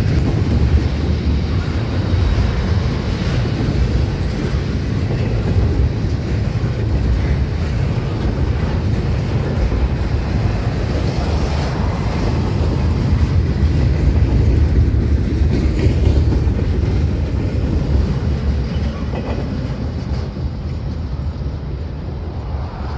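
Double-stack intermodal freight cars rolling past: a steady low rumble of steel wheels on the rails, easing slightly near the end.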